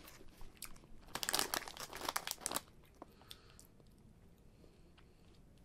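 Plastic snack bag crinkling as it is handled, a dense run of crackles between about one and two and a half seconds in, then only a few faint crinkles.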